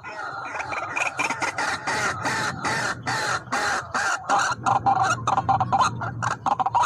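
White-breasted waterhens calling: a rapid, continuous series of harsh, croaking notes, several a second.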